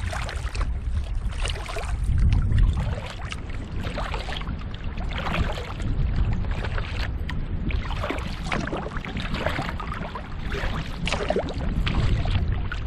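Kayak paddle strokes splashing and dripping in lake water, a stroke every second or two, over a steady low rumble.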